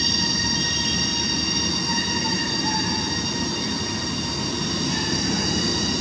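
A chorus of cicadas buzzing steadily, several high-pitched tones held without a break, over a low, even rumble.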